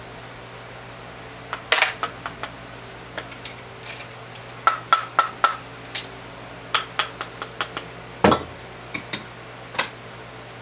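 Sharp metallic clinks and taps from a bullet mold being worked and cast-lead 44 Magnum bullets dropping out of it, coming in quick irregular groups, with one heavier knock about eight seconds in.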